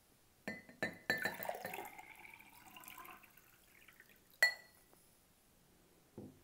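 Glass pint glasses clink, then liquid is poured from two glasses into a third, splashing for about two seconds. One sharp ringing glass clink follows. Near the end the glasses are set down with two dull knocks.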